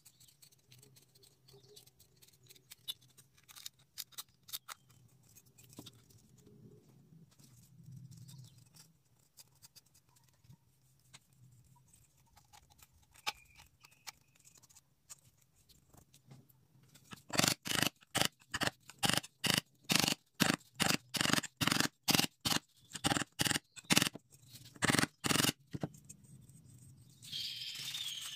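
A small aluminium soda can being handled and worked by hand: light clicks and crinkles at first, then a run of quick, loud scraping strokes against the metal, about three a second, and a softer steady rubbing near the end.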